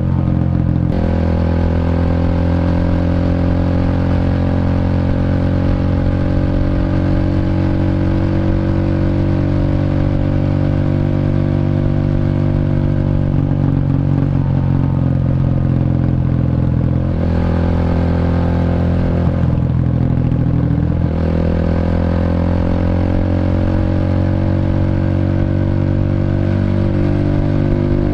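Honda Revo motorcycle's single-cylinder four-stroke engine, bored up to 150cc, running through a CLD C7 aftermarket exhaust while riding. The engine note is loud and steady and changes pitch a few times with throttle and speed.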